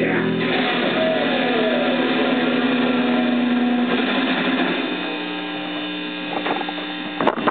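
Electric guitar and bass guitar notes ringing out through amplifiers, with one note bending downward about a second in. The notes die away after about four seconds, leaving a steady amplifier hum, and a couple of sharp knocks sound near the end.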